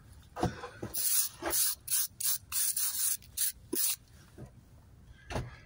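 Stiff-bristled brush scrubbing fresh mortar off brick faces and joints, cleaning up after repointing: a run of about ten quick strokes, stopping about four seconds in, with only faint rubbing after.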